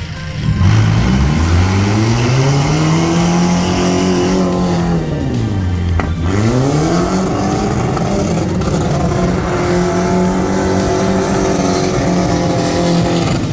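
Chana mini pickup fitted with a 2.7-litre engine revving hard while spinning donuts on loose dirt: the engine note climbs, drops sharply about halfway through, then climbs again and holds high before falling off at the end, with tyres scrabbling on gravel.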